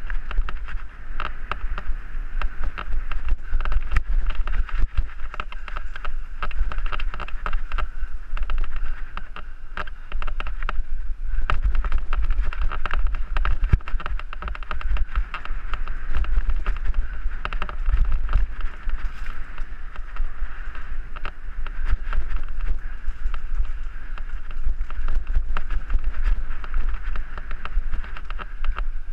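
Mountain bike riding fast down a dirt singletrack, filmed from a helmet camera: wind buffets the microphone in a continuous low rumble, over a steady rattle of many small clicks from the bike bouncing over the trail.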